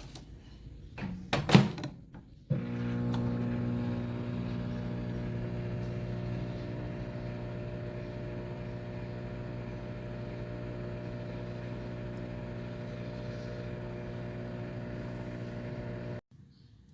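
A few clicks and a knock, as of a microwave door shutting and its controls being pressed, then a microwave oven starts running with a steady electrical hum and cuts off abruptly near the end.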